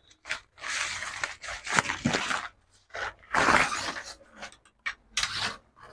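Plastic packaging rustling and crinkling as it is handled, in four short bursts with a few light clicks between them.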